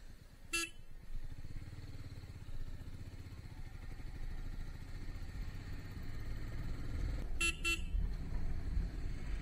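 Motorcycle engine running under way, heard from the rider's seat as a steady low rumble that grows a little louder as the ride goes on. A short horn beep sounds about half a second in, and two quick beeps come near the end.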